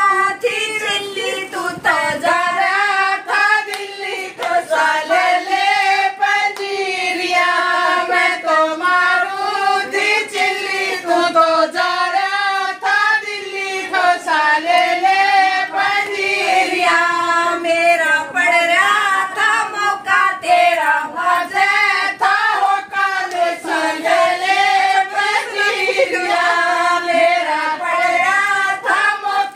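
A group of women singing a jachcha folk song together, a traditional song for a new mother, with hand claps keeping time throughout.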